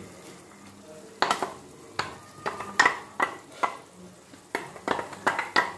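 Wooden spatula stirring a tomato-puree masala in a black nonstick pan, knocking and scraping against the pan about twice a second from about a second in, over a faint sizzle of the frying masala.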